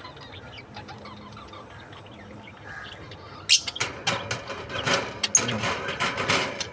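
Pet lovebirds fluttering their wings and chirping, starting a little past halfway with a busy run of quick rustles and sharp calls.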